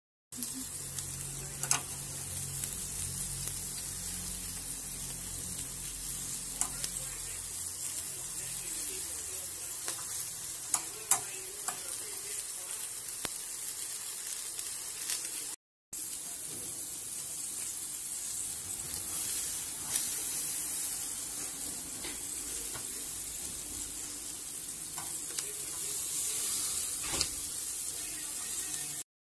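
Marinated pork chops sizzling on a wire rack over an electric grill, with a steady hiss and occasional sharp pops of spitting fat. A low hum sits under the first several seconds, and the sound cuts out for a moment about halfway through.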